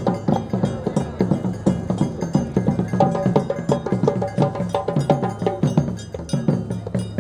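Rhythmic percussion music: quick, even strikes several times a second, with pitched notes under them.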